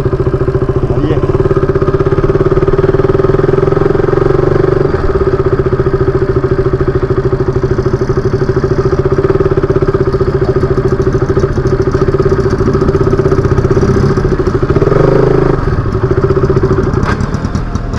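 KTM RC 200's single-cylinder engine running at low road speed, a steady pulsing note that swells briefly about three quarters of the way through as the throttle opens.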